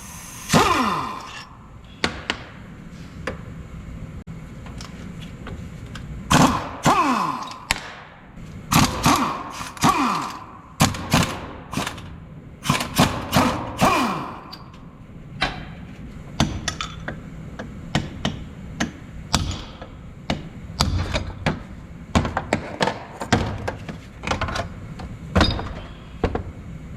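Repeated metal knocks and clanks of tools working on a Toyota Tundra front differential during disassembly. Several loud strikes in the first half ring briefly; lighter, quicker knocks follow in the second half.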